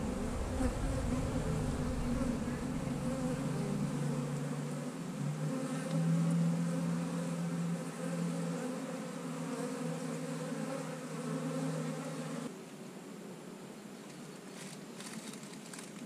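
Honey bees buzzing around an open hive, a steady low hum that wavers a little in pitch. The hum drops away abruptly about twelve seconds in, leaving a fainter drone and a few light clicks near the end.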